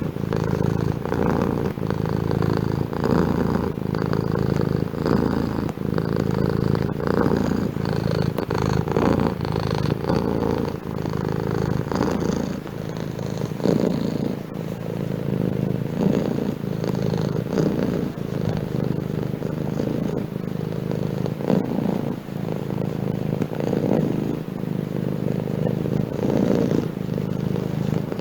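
Domestic cat purring steadily, the low rumble swelling and easing in a slow, even rhythm with its breathing.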